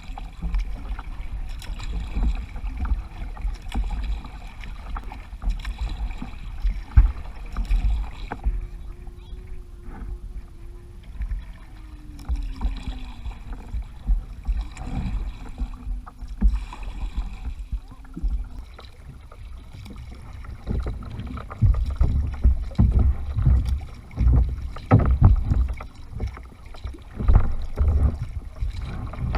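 Kayak being paddled: irregular splashes of paddle strokes and knocks against the hull over a fluctuating low rumble.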